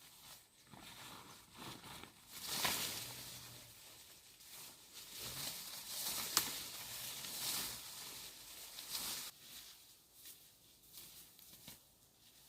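Irregular rustling and crinkling from something being handled, with a sharp click about six seconds in.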